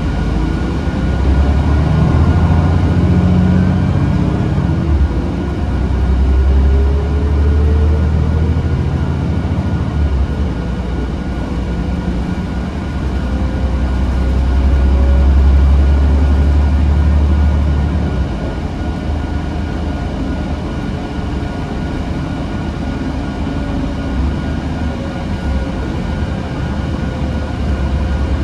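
City bus heard from inside its cabin while under way: a low engine and road rumble with a whine that rises in pitch as the bus speeds up over the first several seconds and again around the middle, and a thin steady high tone throughout.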